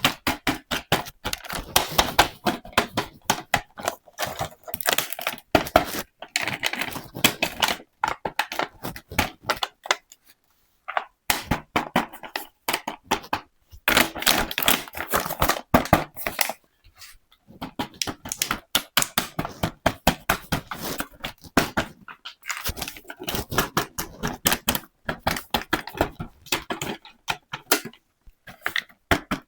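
Close-up handling of small plastic toy pieces and packaging: rapid clicks, taps and crinkles in bursts, with a few short pauses.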